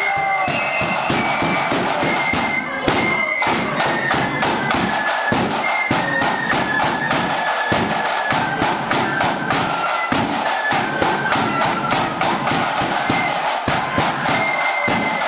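Marching flute band playing a tune: massed flutes carry the melody over steady, heavy drumming from side drums and a big bass drum, loud and echoing in a hall. A hard drum strike about three seconds in.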